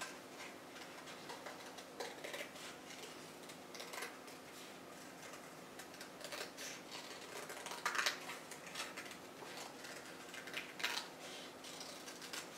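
Scissors snipping through double-layer coloured cardboard, quiet and irregular, with two louder snips in the second half.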